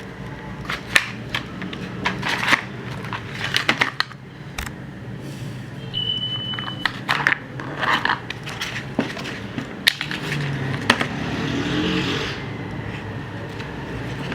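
Handling noise from unboxing a pistol and its accessories: a run of irregular clicks, knocks and scrapes of hard plastic and metal parts being picked up and set down, over a steady low hum. A brief high steady tone sounds about six seconds in.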